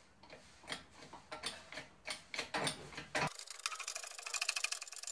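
Metal clicking and knocking as a tapered roller bearing is handled and seated by hand on a differential pinion shaft. About three seconds in, a fast, even run of ticks takes over.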